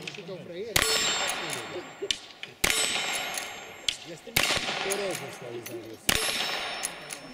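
Four rifle shots, about two seconds apart, each followed by the clang and ring of a steel plate target being hit.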